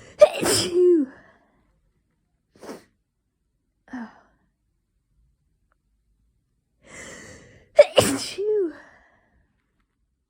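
Two loud human sneezes, one just after the start and another about eight seconds in, each preceded by a sharp in-breath and ending in a falling 'choo'. Two brief faint noises come between them. The sneezing fit comes from an itchy nose, which the sneezer puts down to hayfever or a starting cold.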